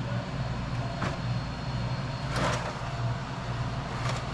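The refrigerated worktable's condensing unit, compressor and condenser fan, running with a steady electrical hum; its condenser is clogged solid. There are a few short knocks and a brief clatter of parts being handled.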